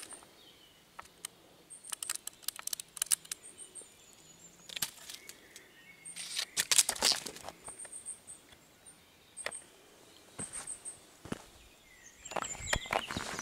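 Footsteps and rustling in dry grass and gravel, with scattered crackles and a few louder scuffs, while short high chirps repeat in the background.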